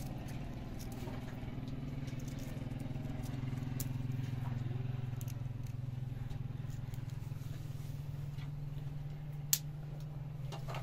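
A small engine running steadily with an even low hum, with one sharp click near the end.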